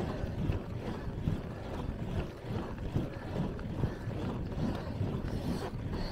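Wind buffeting the microphone of a camera on a moving road bicycle: a low, uneven rumble of rushing air.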